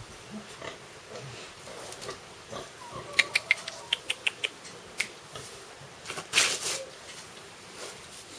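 A calf snuffling and shuffling in straw bedding: a run of light clicks and knocks about three to four and a half seconds in, and a short noisy burst a little after six seconds.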